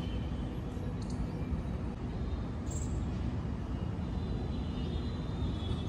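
Steady low outdoor rumble with no distinct events, and a brief faint high-pitched chirp a little under three seconds in.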